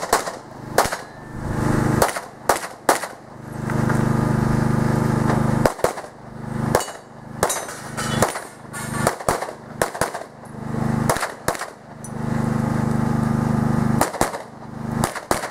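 Pistol shots fired in a practical-shooting stage: an irregular string of single shots and quick doubles. Between the shots a steady low hum drops away after each shot and swells back.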